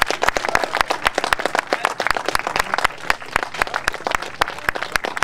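A small crowd of about 30 to 40 people applauding, the hand claps dense and irregular.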